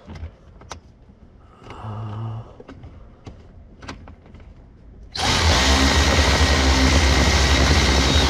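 Power driver running steadily for about three seconds from about five seconds in, turning in the 8 mm screw that holds the blend door actuator, then cutting off sharply. Before it, a few light clicks and a brief low hum about two seconds in.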